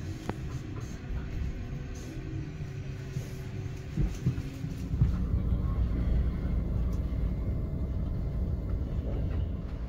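Low, steady rumble of a moving vehicle, getting louder and heavier about five seconds in, with a couple of knocks just before.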